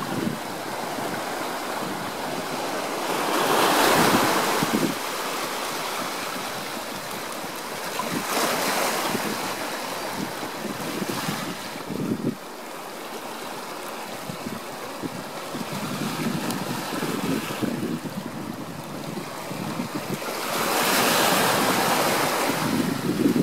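Sea waves washing over a rocky shore, the surf swelling and falling back in several surges, with wind buffeting the microphone.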